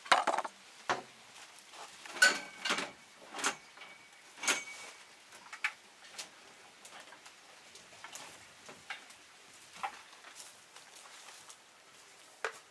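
Metal tools and parts clanking and clicking in an old tractor's steel toolbox as it is rummaged through, with a brief metallic ring early on. The loudest knocks come in the first few seconds, and fainter scattered clicks follow.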